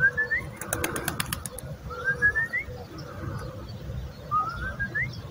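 A bird singing: three short phrases of quick notes stepping upward in pitch, about two seconds apart, with a quick run of sharp clicks about a second in.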